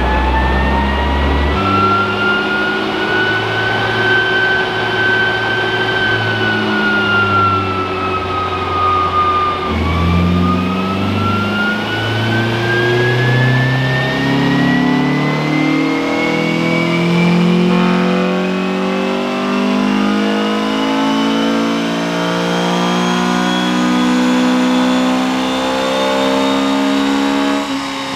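Nissan SR20VE engine in a front-wheel-drive N15 Pulsar running hard under load on a chassis dyno, with a whine rising and falling along with it. The revs climb, ease back, drop suddenly about ten seconds in, then climb steadily in a long pull until near the end.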